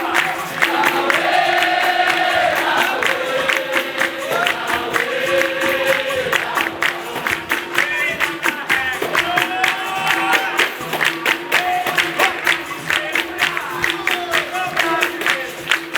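Capoeira roda music: a group singing over a steady, fast rhythm of percussion strikes and hand claps, with a sustained steady tone underneath.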